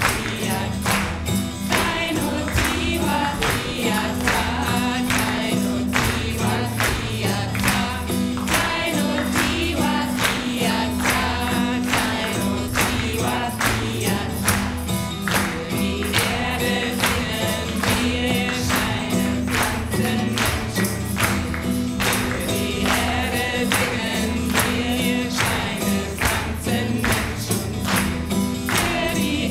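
Group of voices chanting a kirtan song together, led by a woman's voice with acoustic guitar, over a steady percussive beat of about two to three strokes a second.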